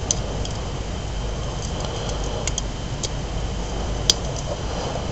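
A few light, scattered clicks and ticks of a small plastic MP3 player's case and main board being handled and pried apart, over a steady background hum.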